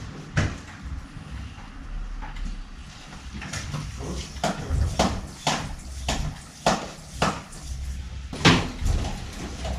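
Footsteps on a hard floor, about two a second, starting a few seconds in.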